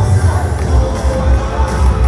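Loud music with a heavy, pulsing bass beat, mixed with a crowd cheering.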